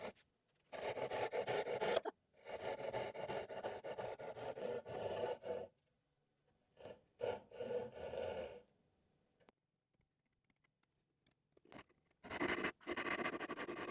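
Hand saw cutting dovetails in wood, in several runs of quick back-and-forth strokes with short pauses between them.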